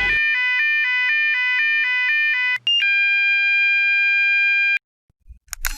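Electronic school fire alarm sounding, alternating between two pitches about twice a second. About halfway through, after a brief click, it switches to one steady tone. The tone stops suddenly about a second before the end, followed by a brief knock.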